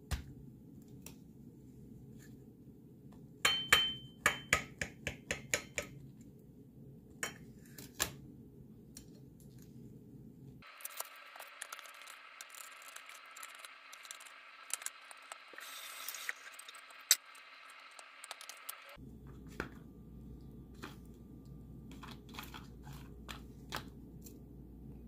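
Cutlery and hands knocking and scraping on a ceramic plate while a baked potato is cut open and topped, with a quick run of sharp clicks a few seconds in and scattered single taps after, over a low steady hum.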